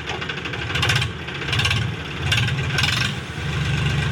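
HMT 3522 tractor's diesel engine running with the silencer removed, its open exhaust loud and raw, the sound swelling several times.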